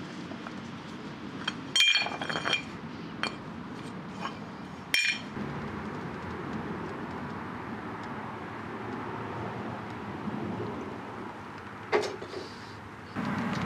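Metal clinks as freshly cast lead fishing weights are knocked out of an aluminium mould: sharp ringing clinks about two seconds in and again about five seconds in. Near the end a metal pan knocks once on the gas stove's grid.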